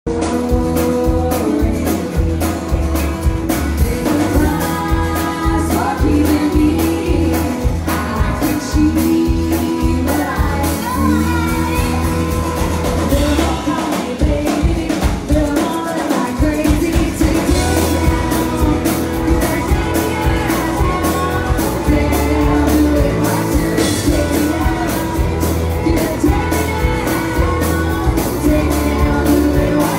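Live rock band playing loud: a singer over electric guitar and a steady drum beat. The bottom end drops out briefly about halfway through, then the full band comes back in.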